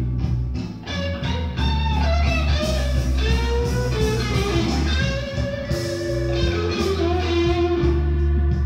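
Blues music played back through a Yamaha M-80 power amplifier and loudspeakers: an electric guitar lead with bent, held notes over a strong bass line.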